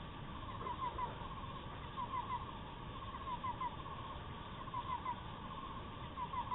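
A bird calling in short, clipped notes, two to four at a time, in five bursts, over a steady background drone.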